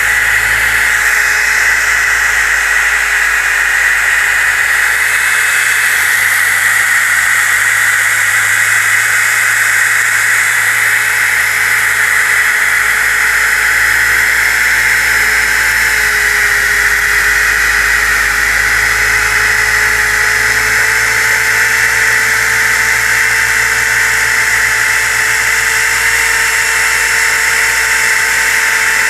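DeWalt DWE6401DS electric disc sander running continuously, a steady motor whine over the hiss of the sanding pad working across a wooden board to remove dried glue squeeze-out. The pitch sags slightly and recovers partway through as pressure on the pad changes.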